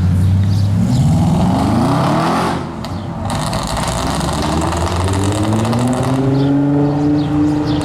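Audi RS6 C7's twin-turbo V8, through a loud aftermarket exhaust, accelerating hard. Its pitch climbs, breaks off briefly at a gear change about three seconds in, then climbs again and holds.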